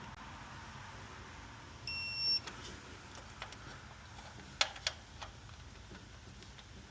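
A single high electronic beep, about half a second long, about two seconds in, followed by several sharp clicks and knocks.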